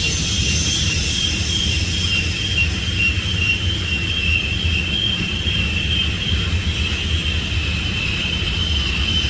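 Freight train rolling around a tight curve: a steady low rumble with a thin, high wheel squeal that wavers slightly in pitch.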